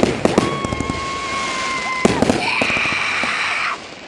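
Fireworks going off: sharp bangs at the start, then a whistling firework holding one steady high whistle for about a second and a half that ends in a bang, followed by about a second of hissing.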